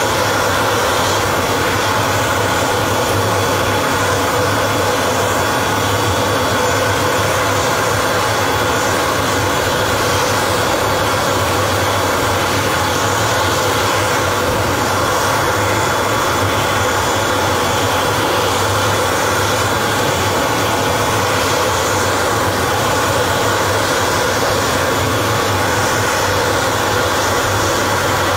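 Steady loud turbine noise from a military cargo jet on the ground: a continuous rush with a high, unchanging whine over it.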